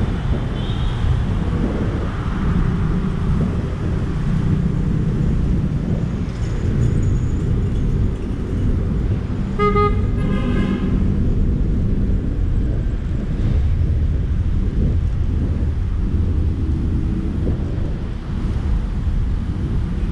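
Wind buffeting the microphone of a moving electric scooter, a steady low rumble mixed with city traffic noise. About halfway through, a horn toots briefly.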